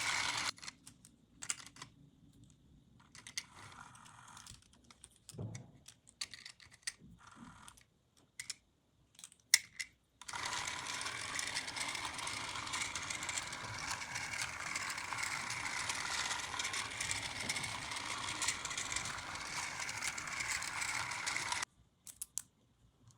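Scattered clicks and taps of small plastic toy pieces being handled, then a small battery-powered toy train's motor running steadily for about eleven seconds before it stops abruptly near the end.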